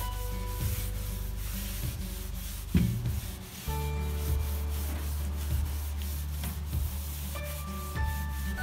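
Cloth rubbing over rusty steel, wiping on rust treatment, under background music with a steady bass line and held notes. The bass drops out briefly a few seconds in.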